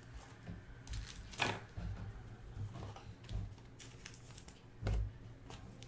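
Trading cards and their packaging being handled: scattered soft rustles and clicks, with a sharper click about a second and a half in and a dull thump near five seconds.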